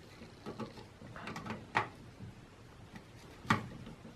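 Light clicks and taps of a desktop processor being handled and seated in its motherboard socket, with two sharper clicks, one near the middle and one near the end.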